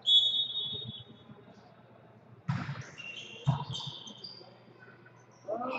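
Referee's whistle blown once for about a second, then two sharp volleyball hits about a second apart, echoing in a gym, followed by brief high squeaks.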